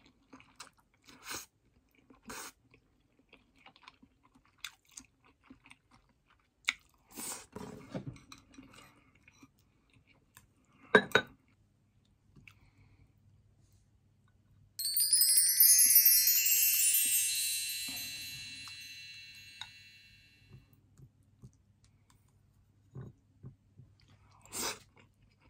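Close-up eating sounds: chewing, with chopsticks and ceramic dishes clicking now and then and one sharp clink about eleven seconds in. About fifteen seconds in a bright, glittering chime sweeps down in pitch and fades over several seconds.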